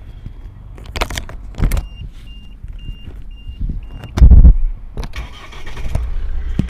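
Key clicking into the ignition of a Mahindra Scorpio BS6 and a row of short dashboard warning beeps, then its 2.2-litre mHawk diesel engine cranks and catches about four seconds in and settles into a steady idle.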